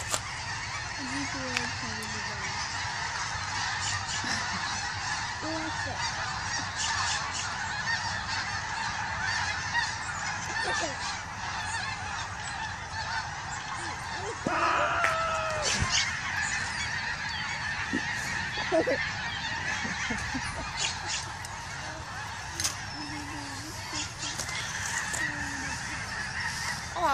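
A large flock of geese honking: a dense, continuous chorus of many overlapping calls, with a few louder single honks standing out around the middle.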